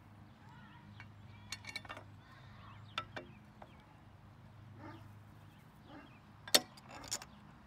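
Scattered light clicks and knocks of metal umbrella-frame parts being handled as the tilt hinge is lined up and a bolt is pushed through it, with the sharpest click near the end.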